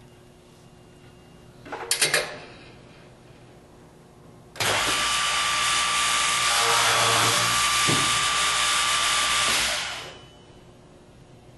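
GANNOMAT DB21 multi-spindle dowel boring machine running a boring cycle: a loud machine noise with a steady whine starts abruptly about four and a half seconds in, holds for about five seconds, then dies away. Before it comes a brief cluster of knocks as the panel is set against the stops.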